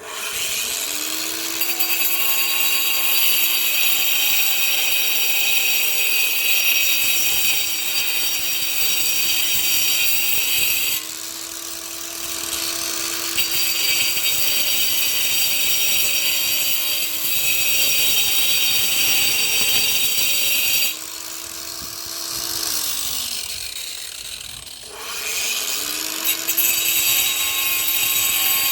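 Hyundai 20V cordless angle grinder spinning up and grinding old mortar off a brick: a harsh, loud grinding over the motor's steady whine. The grinding eases twice as the disc comes off the work. Near the end the grinder winds down, then spins up and bites in again.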